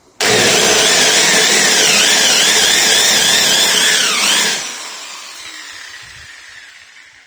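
Electric drill run at full speed to widen a pilot hole in the speaker-box panel with a makeshift reamer rather than a drill bit. Its whine wavers up and down, then the trigger is released about four and a half seconds in and the drill winds down.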